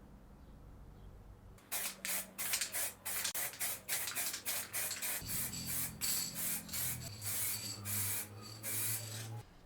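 A rapid run of short hissing strokes, about two to three a second, starting a little under two seconds in and stopping shortly before the end, over a faint low hum.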